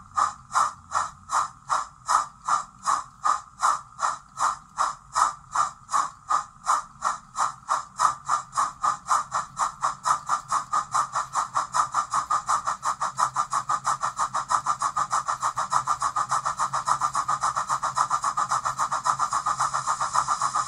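O gauge Peckett model steam locomotive chuffing in a steady rhythm, with smoke puffing from its chimney. The chuffs start at about two and a half a second and speed up steadily as the locomotive runs faster on the rolling road.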